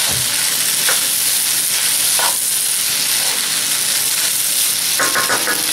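Pasta frying in a nonstick pan while being stirred: a steady sizzling hiss with a few short scrapes of the spoon against the pan.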